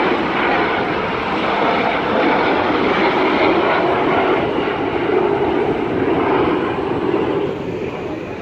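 Jet aircraft flying past with a loud, steady engine roar that fades near the end.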